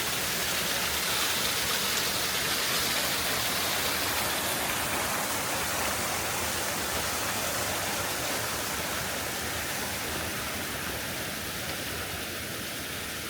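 Small waterfall splashing into its pool: a steady, dense rush of falling water.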